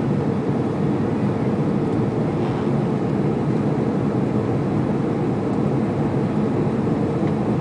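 Steady, deep cabin noise of an Airbus A330-200 climbing after take-off: engine and airflow noise heard from inside the passenger cabin, even in level throughout.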